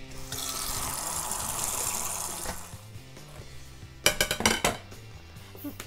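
Kitchen tap water running into the sink as hands are washed, for about two and a half seconds. About four seconds in, a few metallic clinks as the lid of an enamel pot is lifted off. Faint background music underneath.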